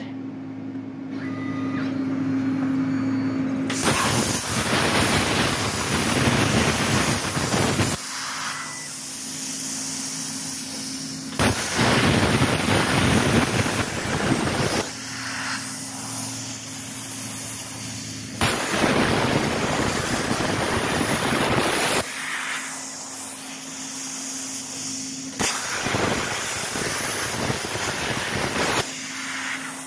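Everlast PowerPlasma 82i plasma cutter on a CNC table cutting circular holes in steel plate: four cuts of about four seconds each, a loud hissing arc and air blast that starts and stops abruptly. Between the cuts, while the torch moves to the next hole, only a steady low hum remains.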